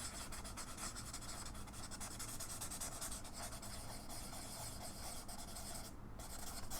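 Handwriting on paper: a writing tip scratching across the page in a steady run of small strokes as notes are taken.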